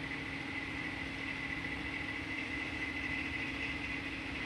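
Steady machine hum with a thin, constant high whine, unchanging throughout.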